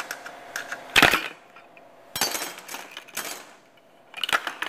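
Sharp clicks and knocks of a plastic bucket's wire bail handle being unhooked and knocking against the bucket. The loudest knock comes about a second in, with smaller clusters at about two, three and four seconds.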